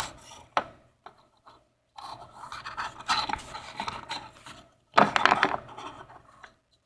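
Scraping and rubbing against a chair, with a few light knocks, as someone struggles to climb into it; the loudest scrape comes about five seconds in.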